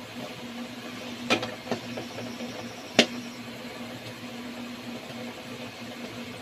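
Wheat-flour gulab jamun frying in oil in an aluminium kadai, a soft steady sizzle, while a metal slotted spatula turning them knocks against the pan a few times, the sharpest knock about three seconds in.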